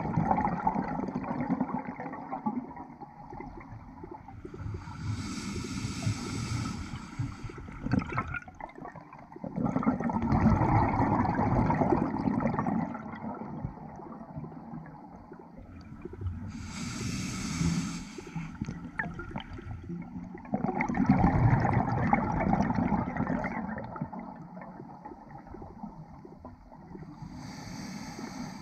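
Scuba diver breathing through a regulator: a hissing inhale roughly every 11 seconds, each followed by a gurgling rush of exhaled bubbles. Three breaths in all.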